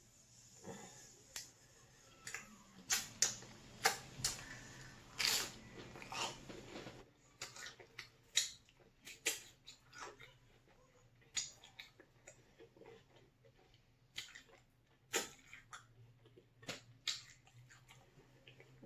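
Close-miked eating: crispy pork rinds being bitten and chewed, irregular crunches and wet mouth sounds, busiest in the first few seconds and thinning out later.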